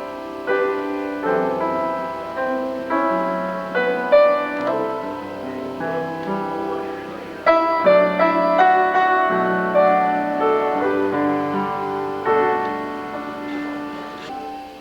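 Piano music: a melody over chords, each note struck and dying away, growing quieter near the end.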